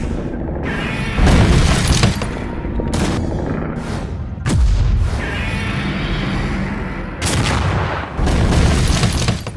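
Dramatic soundtrack music with loud booms and crashing impacts, cartoon fight sound effects that surge up suddenly about four times.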